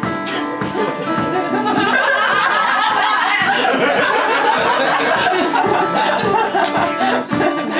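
Acoustic guitar strummed over a steady stomped beat, with a stretch of audience laughter and chatter mixed in through the middle.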